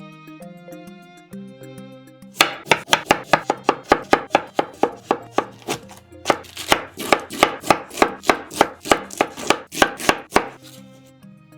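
Kitchen knife chopping on a cutting board, a fast even run of strokes about four a second that starts a couple of seconds in and stops shortly before the end, with soft instrumental music underneath.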